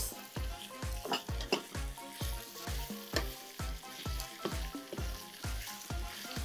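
Lamb and vegetable stir-fry sizzling in a hot frying pan as it is stirred, with a steady low beat of background music about twice a second underneath.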